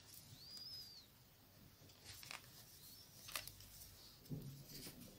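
Near silence: faint room tone with a few faint high chirps and a couple of soft clicks.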